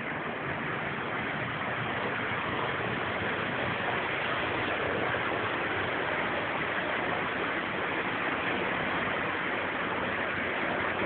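Steady rush of water from the Krka river cascades, an even unbroken hiss that swells slightly in the first second and then holds level.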